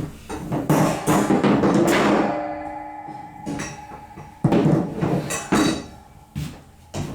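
Knocking and clattering of parts being handled and fitted together. About two seconds in, a struck piece rings with several clear tones that die away, and then come more sharp knocks.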